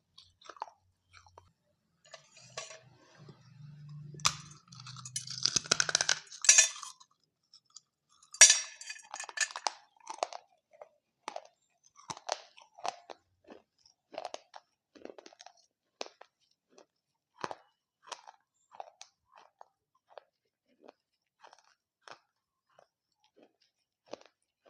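Dahi papdi chaat being eaten close to the microphone. Two loud crunchy bites into the crisp fried papdi wafers come about four and eight seconds in, followed by steady chewing with short wet clicks.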